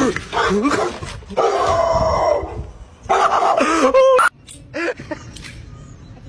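A dog vocalizing in drawn-out, howl-like groans, three bouts of about a second each, then only short quieter sounds after about four seconds.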